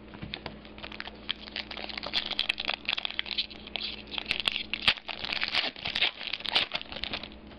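Trading-card pack wrapper crinkling and tearing as a pack of football cards is opened, with the cards rustling. It is a dense run of irregular crackles that stops shortly before the end.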